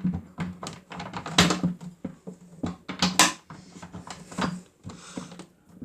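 Toy washing machine running: a small motor hum that starts and stops, under irregular plastic clicks and knocks.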